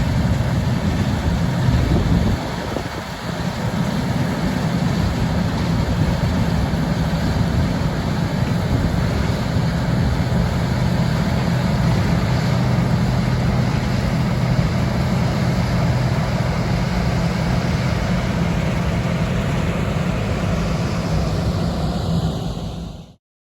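Heavy diesel farm machinery running steadily in a harvest field, with a constant low engine hum, a brief dip about three seconds in, then cutting off suddenly near the end.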